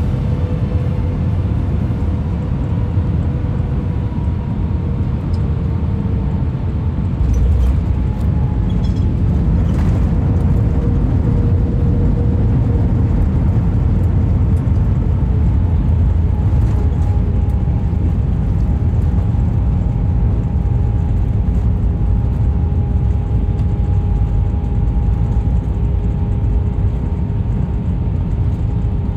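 Cabin sound of an Airbus A319 landing: steady jet-engine hum and airflow rumble with two faint steady engine tones. About seven seconds in the rumble gets louder, with a few knocks, as the wheels touch down. It then stays loud through the runway roll-out with the ground spoilers raised.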